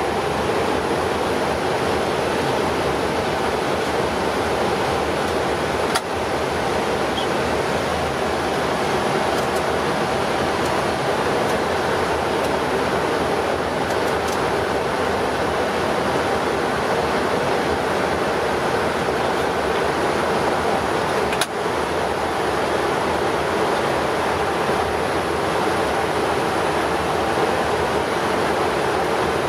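Steady rushing noise on the flight deck of a Boeing 777-300ER in flight: airflow and engine noise heard from inside the cockpit. Two brief clicks cut through it, about six seconds in and again about twenty-one seconds in.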